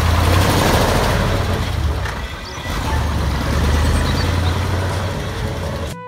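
Cement mixer truck's engine running, a loud, deep, steady rumble that eases slightly about two seconds in.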